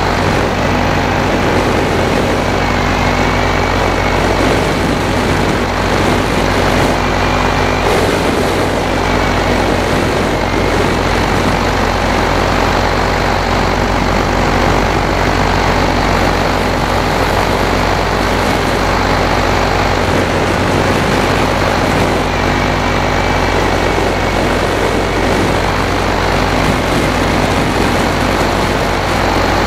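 Paramotor engine and propeller running steadily in flight: a loud, even drone with a noisy rush over it.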